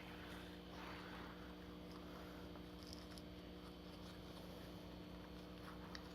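Very quiet: a steady low hum with faint rustling and a few small clicks of handling.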